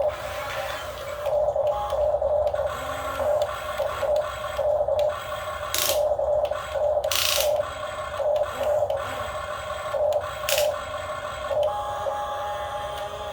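Small electric motors of a radio-controlled excavator whining in repeated short pulses as it is worked, with a few brief scraping noises.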